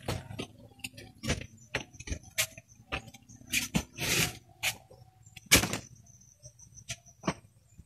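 Footsteps and creaks on a wooden plank floor: a string of irregular sharp knocks and clicks, the loudest about two-thirds of the way through.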